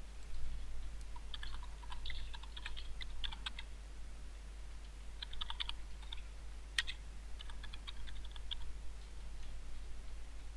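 Typing on a computer keyboard: runs of quick keystrokes with short pauses between them, over a low steady hum.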